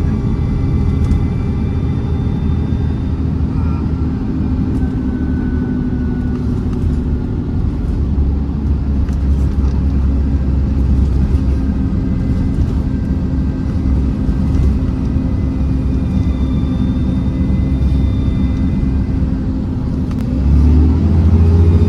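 Alexander Dennis Enviro400 double-decker bus on a Trident chassis under way, its diesel engine running hard with a thin high turbo whistle and light rattles. Near the end the engine note swells and rises.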